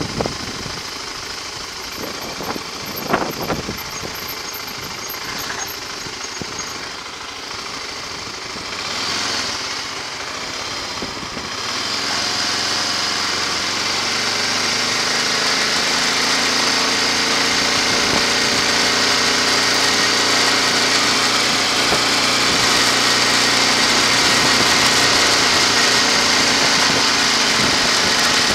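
Engine of the vehicle carrying the camera, running steadily under wind and road noise. It grows louder about twelve seconds in and stays loud.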